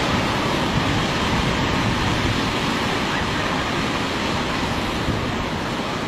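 Heavy storm surf breaking and washing onto a beach, a steady noise without let-up, with wind rumbling on the microphone.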